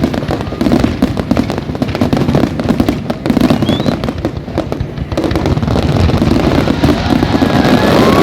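Fireworks going off in quick succession, a dense string of bangs and crackles that thickens into a continuous barrage over the last few seconds.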